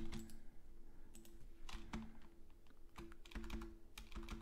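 Keystrokes on a computer keyboard, typing in irregular runs with short pauses, as a long directory path is entered at a terminal prompt.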